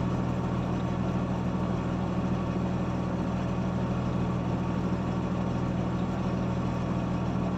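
Diesel engine of a heavy road-building machine running steadily at constant speed, a low, even drone with no change in pitch.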